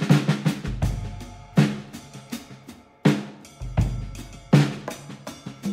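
Background music with a drum kit beat: regular snare hits and deep kick-drum thuds.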